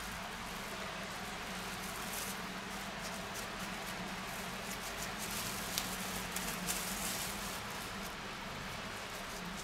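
Plastic cling film crinkling in irregular short crackles as gloved hands roll and press a minced-meat roulade in it, over a steady low hum.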